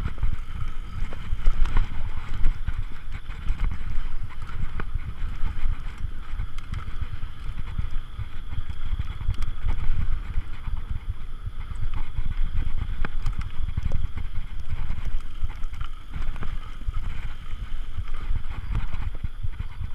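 Mountain bike ridden over a rough dirt trail: steady wind rumble on the microphone with tyre noise and frequent small knocks and rattles from the bike over bumps.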